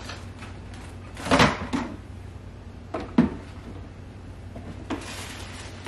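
Hard plastic stackable bins knocking against each other as they are handled and stacked, a few separate knocks with the loudest about a second and a half in.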